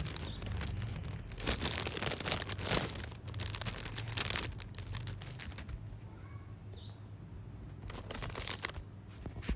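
Plastic packaging of a COVID-19 rapid antigen test kit crinkling and rustling as it is opened and its parts are handled, in irregular bursts, quieter for a few seconds past the middle.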